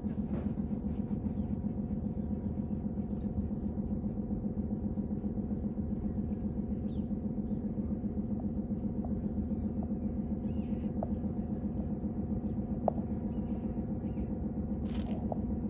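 An engine running at a steady pace: a low, even drone with a fast regular pulse, unchanging throughout. A few faint short chirps sound over it.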